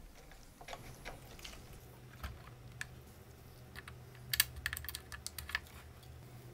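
Light, scattered clicks and taps of gloved fingers handling small components on a CD player's circuit board as an old electrolytic capacitor is lifted out. A quick run of sharper clicks comes a little past the middle.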